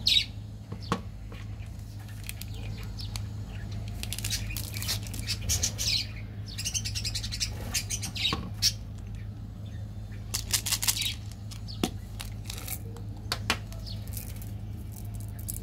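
Hands handling candy and wrappers: several bursts of crinkling rustle and a few sharp clicks over a steady low hum.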